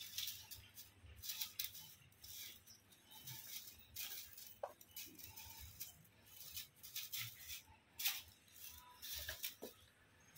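Dry rustling and crackling of a stick broom's stiff bristles as kittens paw, claw and tussle on it, in short irregular bursts.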